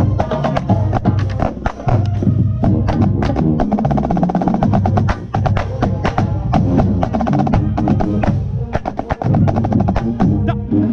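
Marching snare drum played close up in fast, dense stick patterns and rolls, over the full marching band's brass and bass drums.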